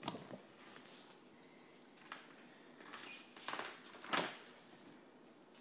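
Faint handling noise over quiet room tone: a click as the phone is moved at the start, then a few short soft rustles about three and a half and four seconds in as the book is handled.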